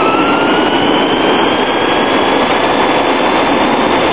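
Traxxas Stampede VXL's brushless electric motor and gears whining at speed, picked up by a camera mounted on the truck, over a steady rush of tyre and road noise. The whine rises slightly in pitch over the first second or so as the truck accelerates, then holds steady.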